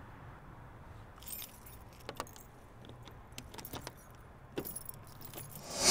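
Car keys jangling and clicking in short, scattered bursts as they are handled at the car door, over a faint low hum. A louder rush of noise swells up at the very end.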